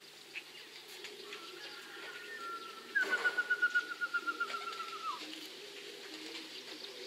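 Domestic pigeons cooing softly at the loft. Over the middle comes a louder high, fast trill of about ten notes a second that falls slightly in pitch and stops abruptly.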